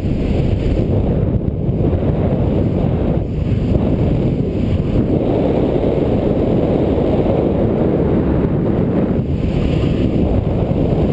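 Airflow buffeting a skydiver's camera microphone under an open parachute canopy: steady, loud, low wind noise with no let-up.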